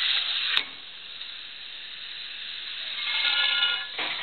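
Automated bearing-puller machine at work: a steady hiss that cuts off with a sharp click about half a second in. From about three seconds in, a whine with several steady tones builds and stops just before the end, as the machine draws a roller bearing off its shaft.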